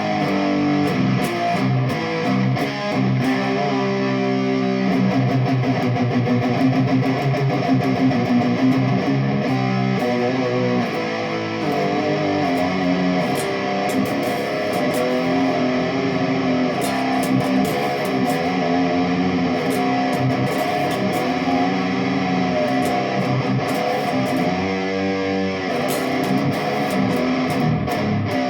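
Jackson Dinky electric guitar played continuously, moving between notes and chords, with a 103J (0.01 µF) capacitor wired to its tone control.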